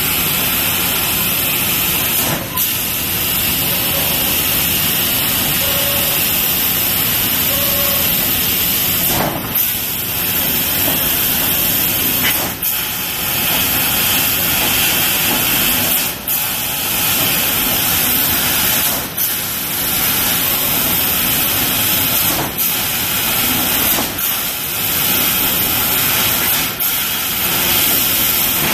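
Industrial laser cutter cutting sheet panels: a steady, loud hiss from the cutting head, broken by short dips every few seconds as the head moves between cuts.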